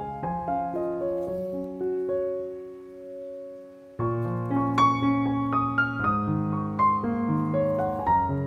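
Background piano music playing slow chords. It fades down and, about four seconds in, starts again abruptly and louder.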